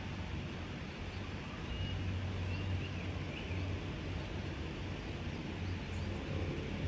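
Steady low motor hum over outdoor background noise, with a few faint high chirps about two to three seconds in.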